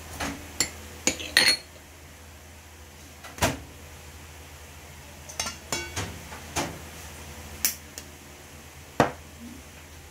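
Scattered clinks and knocks of kitchenware as dishes and utensils are handled: a glass dish, eggs and a spoon set down and tapped on the table and against a stainless steel mixing bowl. About a dozen sharp separate knocks, bunched a little over a second in, with a brief metallic ring around six seconds in.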